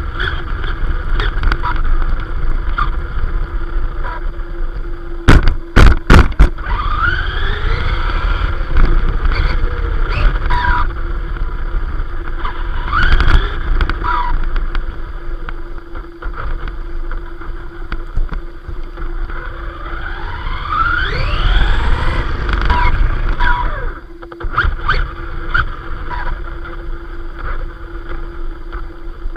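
Arrma Vorteks 4x2 RC truck's electric motor and drivetrain heard from a camera mounted on the truck: a whine that rises and falls in pitch as it speeds up and slows, over tyre rumble on paving. A few sharp knocks come about five to six seconds in.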